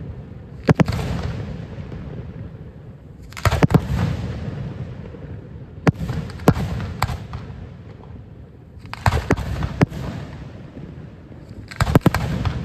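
Fireworks going off in loud bangs, some single and some in quick clusters, about every two to three seconds. Each volley is followed by a long rolling echo that dies away.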